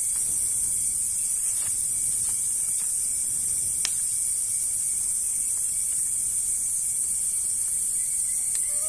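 A steady, high-pitched insect chorus of cicadas or crickets shrilling without a break, with a single sharp click about four seconds in.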